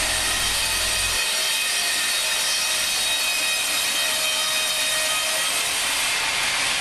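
Wimmer BN 110 band sawmill cutting through timber: a steady sawing noise with a faint even whine. A low hum underneath stops about a second in.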